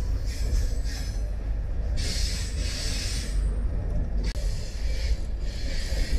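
Train running along the line, heard from on board: a steady low rumble with swells of rushing, hissing rail and wind noise.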